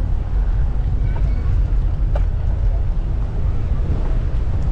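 Steady low rumble of wind buffeting the microphone, with faint voices in the background.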